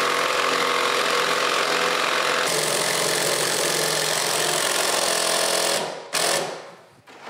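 Impact driver hammering 5-inch bolts through a steel stair-support bracket: one long steady run that changes tone about halfway through, stops, then a short final burst to seat the bolt.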